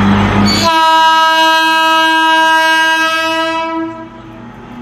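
WAG-12B electric freight locomotive sounding its horn: one long, steady blast of about three seconds, starting just under a second in, over the running noise of the approaching freight train.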